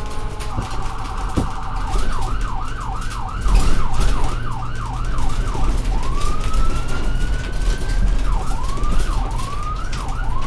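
Ambulance siren cycling through its modes: a fast warble, then a quick yelp of about two to three sweeps a second, a single long rising wail from about six seconds in, and the yelp again near the end. A steady low rumble runs underneath.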